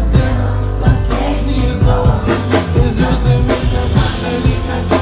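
Pop song playing between sung lines: a steady drum beat over a sustained deep bass and held chords.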